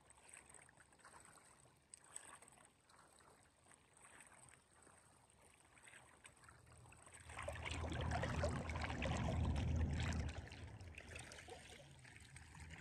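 Shallow water at the shoreline lapping and sloshing. It is faint with a few small clicks at first, then louder and fuller for about three seconds past the middle before fading.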